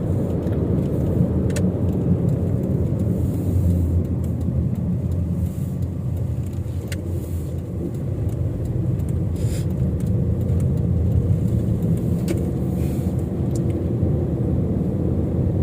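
Nissan X-Trail driving off, a steady low engine and road rumble, with a few faint clicks.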